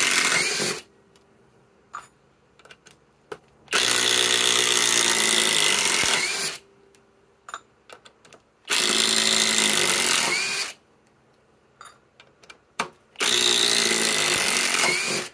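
Cordless impact driver (SKIL Power Core 20) hammering long structural screws into a wooden timber: a run that stops about a second in, then three more runs of two to three seconds each, with small clicks in the pauses between them.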